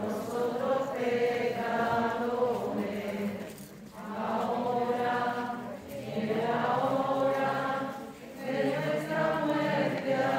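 A crowd of voices chanting rosary prayers together in Spanish, in level unison phrases of a few seconds with short breaks for breath between them.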